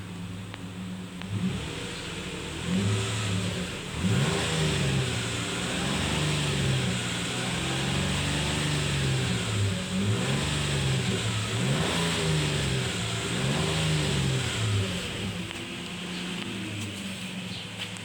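Nissan Navara's 4.0-litre V6 petrol engine running and being revved about half a dozen times, the pitch climbing and falling back to idle with each blip.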